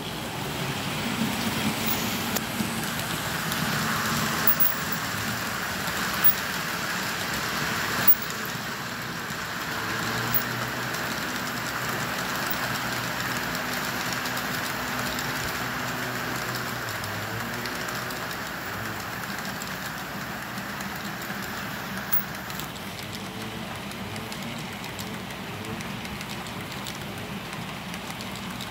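BNSF freight train passing: the locomotive engines' drone at first, then the steady rolling rumble of the cars' wheels on the rails, with occasional sharp clicks.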